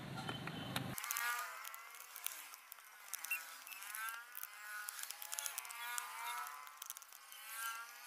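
Small screwdriver turning screws out of a plastic Bluetooth speaker case: faint rising-and-falling squeaks about once a second, with a few light clicks.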